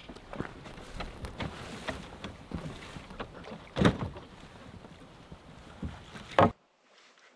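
Small knocks and clunks of gear and a fishing rod being stowed in a canoe, with a loud thump against the hull about four seconds in and another just before the sound cuts off to near silence.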